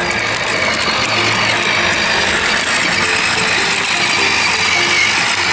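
Toy ride-on quad's 6-volt electric motor and plastic gearbox running steadily under a child's weight as it drives.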